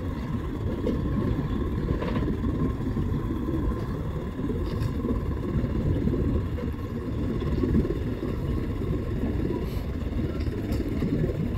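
Steady low rumble of vehicle engines as pickup trucks tow boats on trailers.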